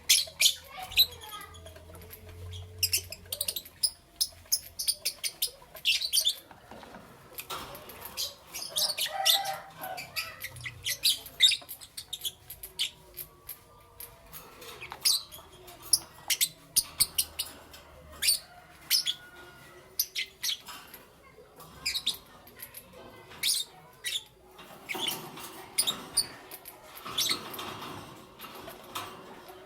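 Lovebirds chirping: a fast, irregular stream of short, shrill chirps, some much louder than others.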